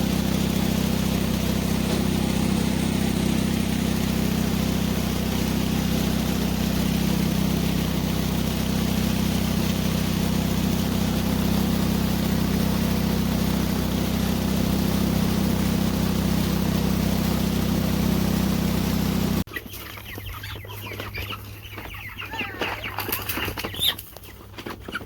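A motor vehicle's engine running with a steady low hum. It cuts off abruptly near the end, and Cornish Cross broiler chickens are heard clucking and peeping.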